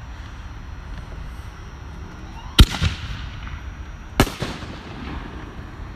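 Two sharp fireworks bangs from consumer reloadable aerial shells, about a second and a half apart, each followed by a short echo.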